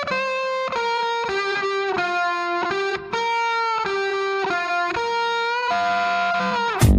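Background music: a solo electric guitar playing a slow melody of single held notes, with no drums until the full beat comes back in right at the end.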